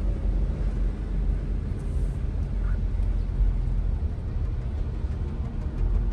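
Steady low rumble of an SUV's engine and tyres heard inside the cabin while driving on wet roads, with an even hiss over it.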